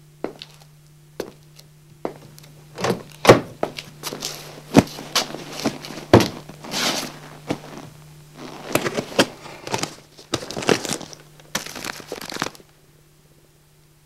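Foley sounds performed by hand: a few sparse shoe footsteps, then from about three seconds in a busy run of thunks, crinkling and rustling from props being handled, stopping about a second before the end. A steady low hum lies underneath.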